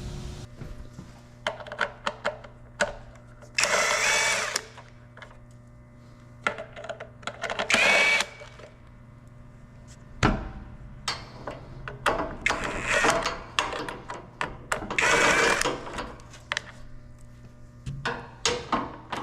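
Power drill run in short bursts of about a second, several times, with clicks and clatter of parts and tools being handled between the bursts.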